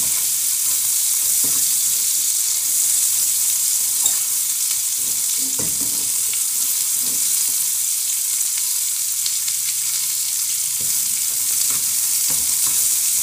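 Sliced calabresa sausage and onion sizzling in an aluminium frying pan, a steady hiss, with a utensil scraping and stirring through the pan now and then.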